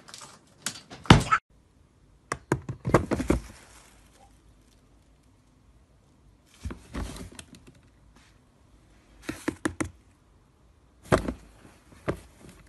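Hollow plastic knocks and thunks in about five short clusters with quiet between them: a cat climbing into a lidded plastic bin, the lid knocking and clapping against it.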